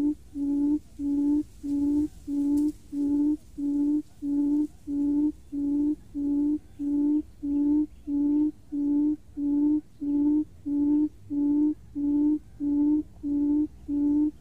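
Buttonquail decoy call: a low booming hoot repeated at an even pace, nearly two a second, used to lure buttonquails into the trap.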